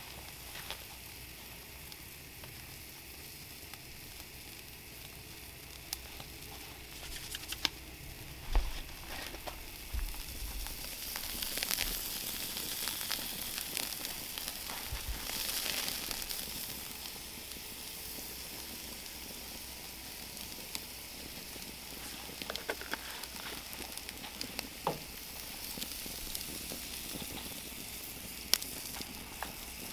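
Wild hog tenderloins sizzling on a steel grill grate over an open wood fire: a steady hiss with scattered crackles and pops. The sizzle grows louder for a few seconds in the middle, then settles back.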